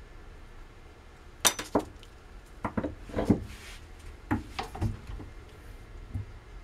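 Sharp clinks and taps of small metal tooling being handled at an arbor press, about eight in an irregular run.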